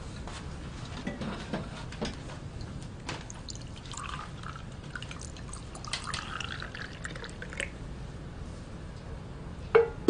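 Tea being poured from a teapot into a glass, the pitch of the pour rising as the glass fills, with a few light clinks of tableware.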